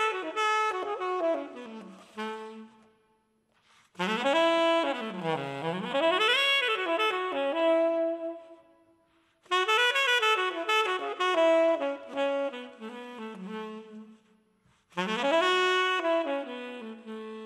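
Unaccompanied jazz saxophone playing a slow ballad line in separate phrases. Each phrase opens loud with notes sliding down and back up, then fades out into a short silence before the next: three fresh phrases after the tail of the first.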